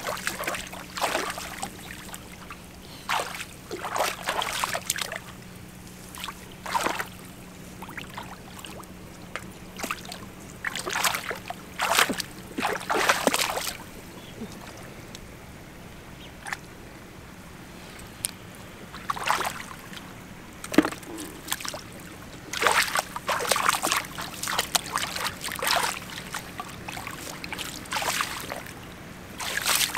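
Hands splashing and sloshing in shallow muddy water while groping through the mud for fish, in irregular bursts with a quieter stretch midway.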